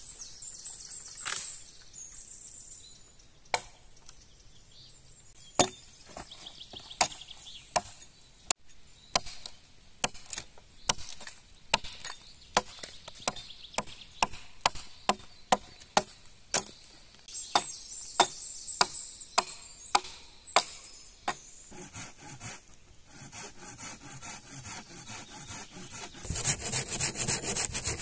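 Axe chopping into a fallen branch: a few separate knocks, then a long run of sharp wooden blows about two a second. Near the end they give way to quicker rasping strokes on the wood.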